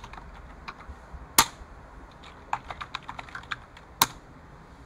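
Computer keyboard typing: scattered key clicks, with two much louder sharp clicks, one about a second and a half in and one about four seconds in.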